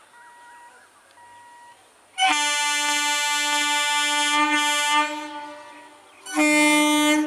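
Electric multiple unit (EMU) local train's horn: one long steady blast of about three seconds that fades away, then a shorter second blast near the end.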